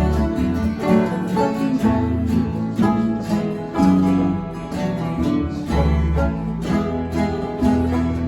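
Acoustic guitar music with plucked strings and a bass line, in a bluegrass or folk style.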